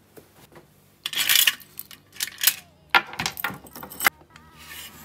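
Keys and small items clinking and rattling against a metal tray as they are picked out of it, after a brief rustle. The sharp clinks come in quick bunches for about three seconds, then stop.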